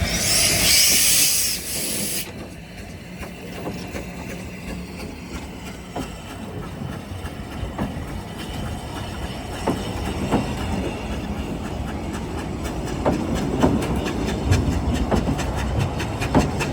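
A narrow-gauge steam train: a loud hiss of steam for about the first two seconds, then the train rumbles on with scattered sharp clicks and knocks.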